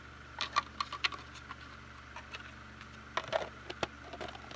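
Light clicks and taps of Trivial Pursuit game pieces and cards being handled, in a cluster about half a second to a second in and again a little after three seconds.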